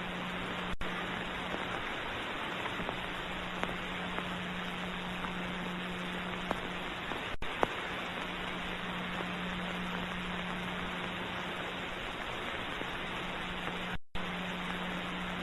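Hiss of an old film soundtrack with a steady low hum, broken by a couple of tiny dropouts and a brief gap near the end.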